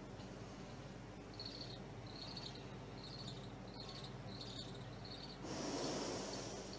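About six faint high chirps, evenly spaced, with a steady low hum of the sound system beneath. Near the end the reciter draws a long, deep breath close to the microphone before her next phrase.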